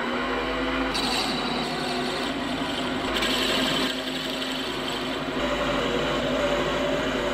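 Lathe spinning a wooden blank as the cutter turns it to shape: a steady machine hum under the scraping hiss of the cut, which changes in tone a few times as the tool moves along the wood.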